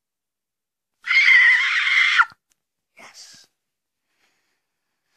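A child's voice giving a loud, raspy screech for just over a second, then a short, softer sound a second later.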